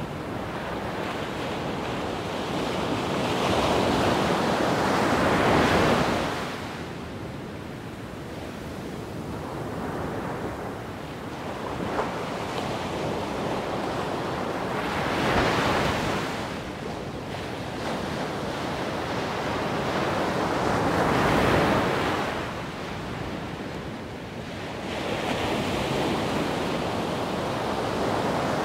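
Wind gusting across the microphone: a rushing noise that swells and eases every several seconds, loudest in four surges.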